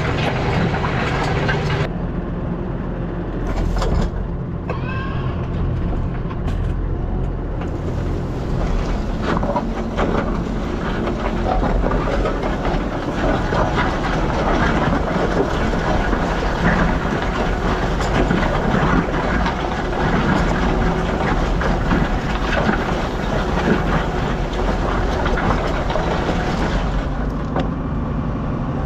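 New Holland T7.210 tractor engine running steadily under load while pulling a plough through the soil.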